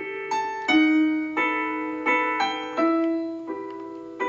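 Slow solo piano music: single notes and chords struck every half second or so, each left to ring and fade.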